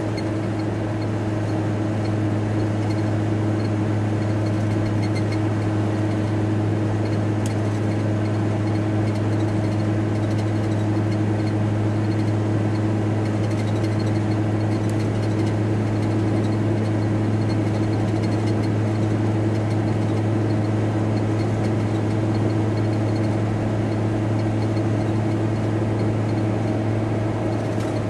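Volkswagen T4 Transporter van driving at a steady speed, heard from inside the cab: an even engine and road drone with a strong low hum and a few fainter steady tones above it.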